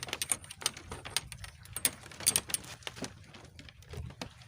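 Irregular sharp clicks and knocks, several a second.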